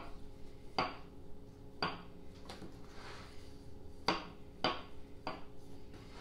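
Kitchen knife clicking against the rim of the pie dish and the wooden board while trimming excess pastry dough from the pie's edge: about six sharp, irregular clicks over a faint steady hum.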